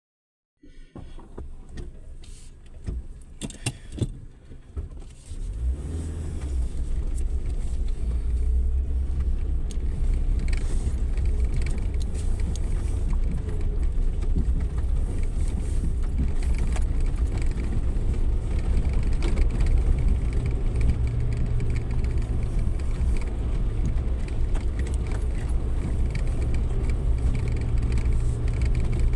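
Clicks and rattles for the first few seconds, then from about five seconds in a Suzuki Jimny 4x4's engine runs steadily with a low drone.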